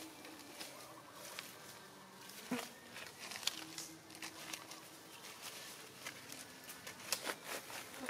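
Faint insect buzzing over scattered crackles of dry leaves as monkeys move on the leaf litter, with a louder rustle about two and a half seconds in and a cluster of crackles near the end.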